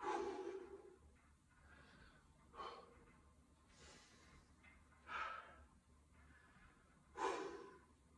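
A man breathing hard as he recovers from a set of kettlebell swings: four loud exhales about two to two and a half seconds apart, with quieter inhales between them.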